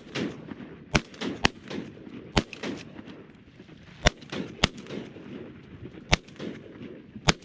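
Duck-hunting shotguns firing about seven sharp shots at irregular intervals, some in quick pairs, as ducks are shot at over the blind.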